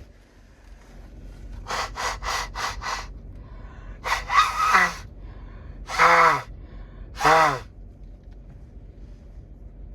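A woman sneezing three times, each sneeze ending in a voiced note that falls in pitch, after a run of five quick, catching in-breaths. The sneezing fits she puts down to stepping from a hot, dry sauna into cold air.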